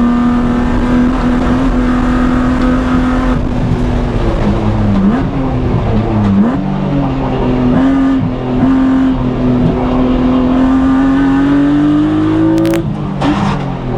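BMW E36 M3's straight-six engine pulling hard at speed, its note mostly steady with two brief dips around the middle. The note then climbs for a few seconds and drops sharply near the end at a gear change.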